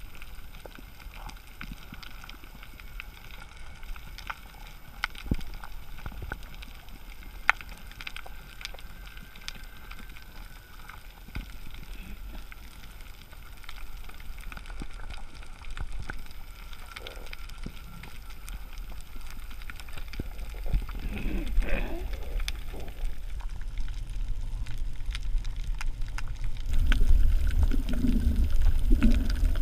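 Underwater reef ambience: a steady crackle of scattered sharp clicks, typical of snapping shrimp on a coral reef, over a low wash of water. A few gurgles of bubbles come about two-thirds of the way through, and a low rumble of moving water grows louder near the end as the camera rises toward the surface.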